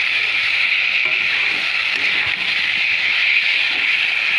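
Brinjal pieces and masala sizzling steadily in hot oil in a kadai while being stirred and sautéed down with a spatula.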